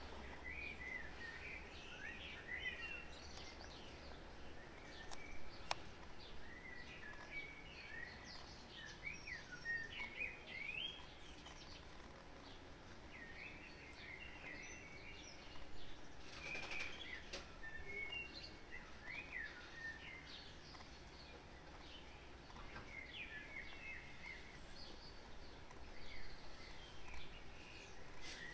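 Birds chirping and twittering faintly in short scattered phrases, over a low steady background noise.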